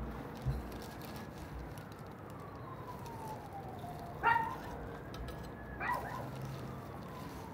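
A siren wailing slowly: its pitch falls over about three seconds, rises again, then falls. A dog barks twice, about four and six seconds in.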